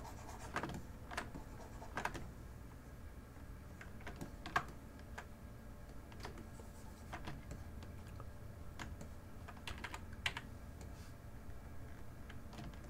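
Sparse, irregular clicks and taps of a computer keyboard and mouse in use, faint, with two louder clicks about four and a half and ten seconds in.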